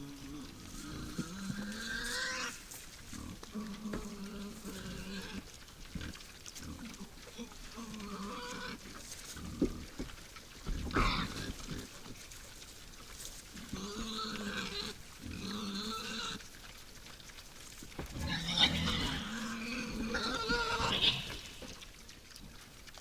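Wild boars grunting, with repeated short pitched calls that become higher and more crowded near the end, and a single sharp knock about eleven seconds in.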